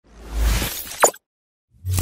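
Logo-intro sound effects: a whoosh that swells with a deep low end and ends in a sharp hit about a second in, then a shorter second hit with a low thump near the end.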